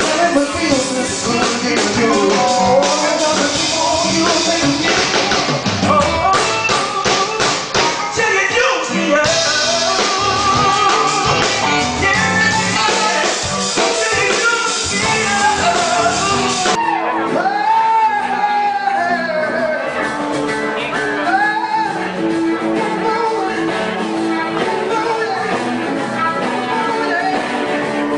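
Live rock band playing with a man singing, recorded from the audience on a fan's camera. About two-thirds of the way through the sound changes abruptly, turning duller, as a different live recording of the band takes over.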